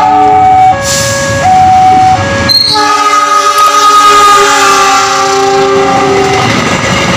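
Horn of a CC206 diesel-electric locomotive sounding in long held blasts that step between pitches, over the rumble of the passing train. A sharp break comes about two and a half seconds in.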